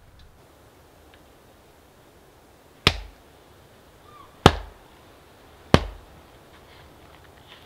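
Three sharp hatchet chops into firewood, splitting it down. The second and third come closer together than the first and second.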